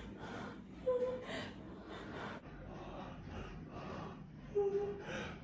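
A person breathing hard in quick, shallow pants, about two breaths a second, with two brief whimpering sounds, about a second in and near the end, as if in distress.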